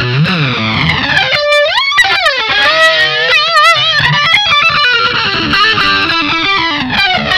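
Electric guitar played through a Vox StompLab multi-effects pedal set to flanger, the slow sweeping whoosh rising and falling over a single-note lead phrase with slides and vibrato.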